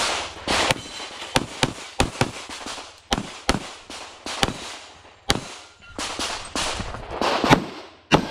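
Infinity 2011 pistol in .40 S&W firing a rapid string of shots, mostly in quick pairs about a quarter second apart, with short gaps between the pairs.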